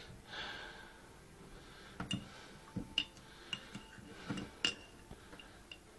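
A metal teaspoon clinking against a mug and other crockery while tea is made by feel: several separate sharp clinks, some with a short high ring, spread through the second half.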